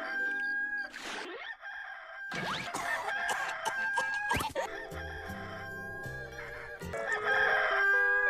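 Rooster crowing: the Hollywood Edge 'Rooster 2 Crow' stock sound effect, heard in several short pieces that cut abruptly one into the next.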